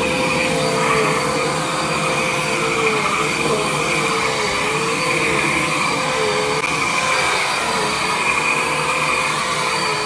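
Vacuum cleaner running steadily on carpet, its motor whine dipping slightly in pitch about once a second.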